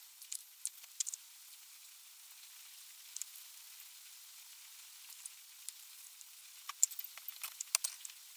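Light clicks and scratches of marking out a steel plate by hand, as a tape measure, marker pen and round template are handled on the metal, over a steady faint hiss. A few clicks come near the start, and a quicker cluster of sharper ones near the end.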